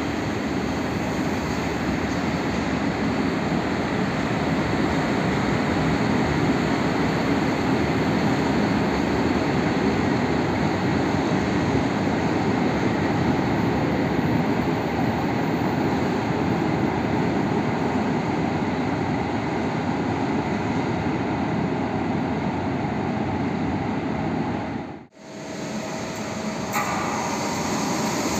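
A PKP Cargo ET22 electric locomotive shunting a rake of PKP Intercity coaches through the station, a steady rolling noise of wheels and running gear. It breaks off about 25 seconds in, and an EP07 electric locomotive's approach begins, growing louder toward the end.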